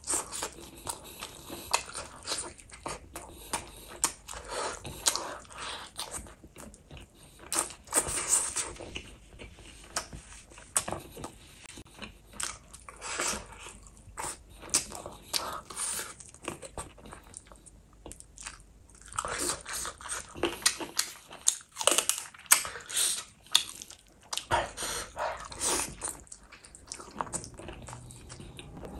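A person chewing and biting spicy chicken lollipops with gravy and rice, making many short, sharp mouth clicks in clusters throughout.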